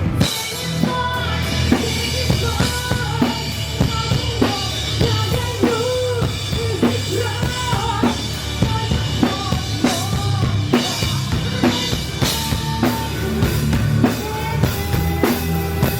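Rock music with a full drum kit driving a steady beat under bass and a melodic line.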